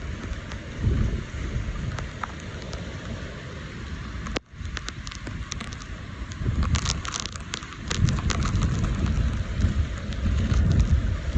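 Heavy typhoon rain with gusting wind buffeting the microphone, a deep rumble under a patter of drops. It drops out for an instant about four seconds in, and the wind rumble grows stronger in the second half.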